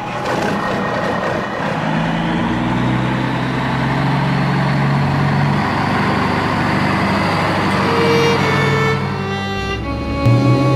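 Slow bowed-string music in long held low notes, with the steady rumble of a truck engine running underneath.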